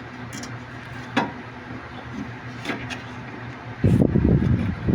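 A front-loading washing machine's drive belt being worked onto its pulleys by hand, with a steady low hum underneath. A few light clicks, then near the end about a second of loud rattling rumble as the belt and drum pulley are handled and turned.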